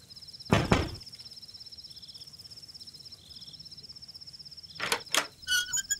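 Knocking on a wooden door: two knocks about half a second in, then two more about four seconds later, followed by a short creak near the end. Crickets chirp steadily throughout with a fast, even high-pitched pulse.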